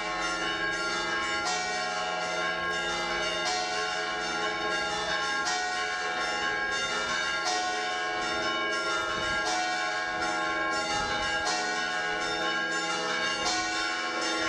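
Bells ringing, a fresh stroke about every two seconds over long sustained ringing tones.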